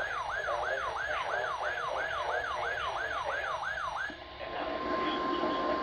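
A weather alert radio's siren alarm wailing, its pitch sweeping up and down about three times a second, stops about four seconds in; a steady 1050 Hz weather radio warning alarm tone follows, with radio static behind it.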